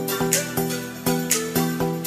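Background music: plucked notes over a steady beat, with a sharp percussion hit about once a second.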